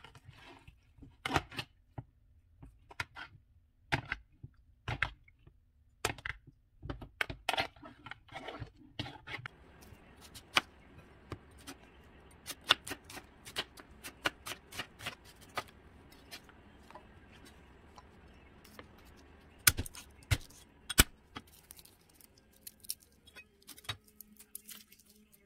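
Food-prep handling sounds: a metal spoon knocking and scraping in a plastic bowl of marinating chicken, then, from about nine seconds in, a kitchen knife cutting an onion on a plastic cutting board, with scattered taps and the rustle of garlic being peeled. The loudest sounds are two sharp knocks of the knife on the board near the end.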